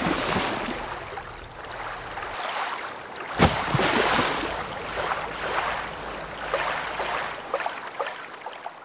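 Rushing, splashing water noise in two surges. The first is already under way and fading. The second starts sharply about three and a half seconds in and dies away slowly.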